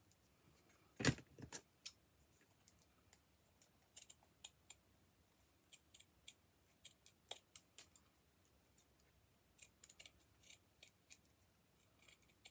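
Scissors snipping in short, irregular cuts, with one louder knock about a second in.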